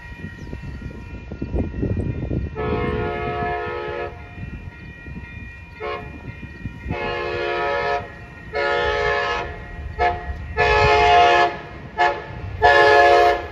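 An Amtrak locomotive's multi-chime air horn sounds a series of blasts over the low rumble of the train. From about halfway in, the blasts run long, long, short, long, which is the grade-crossing signal, then another short blast and a long one.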